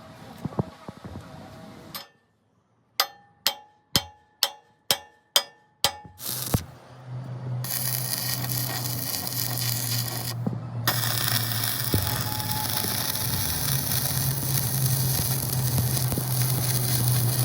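Seven hammer blows on steel, evenly spaced about half a second apart, each ringing briefly. After them comes a loud, steady hiss with a low buzz under it, broken once for a moment, typical of metalwork such as welding.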